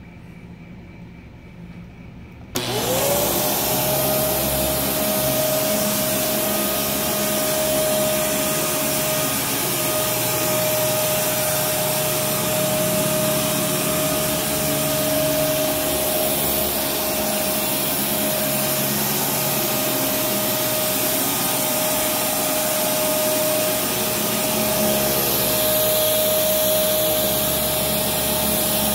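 Kenmore Progressive direct-drive upright vacuum cleaner switched on about two and a half seconds in: its motor spins up within a moment to a steady whine over rushing air, then runs on.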